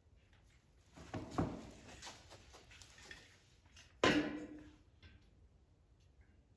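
Scattered knocks and clicks of parts and tools being handled while assembling a portable sawmill, with one sharper clank that rings briefly about four seconds in.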